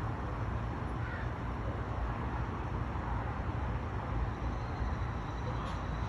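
Steady low outdoor rumble, with faint high, thin bird notes in the second half.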